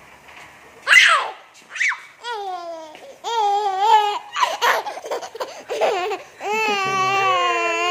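A toddler laughing and squealing in several short high-pitched bouts, the last one long and held near the end.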